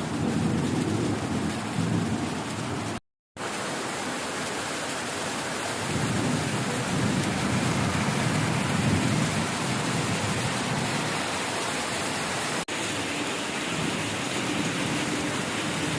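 Thunderstorm: steady rain with low thunder rumbling, swelling near the start and again around the middle. The sound cuts out briefly about three seconds in.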